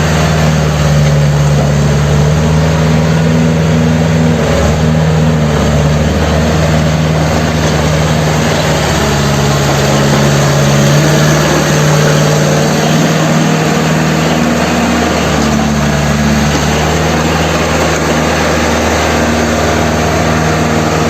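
Caterpillar D3C bulldozer's diesel engine running steadily.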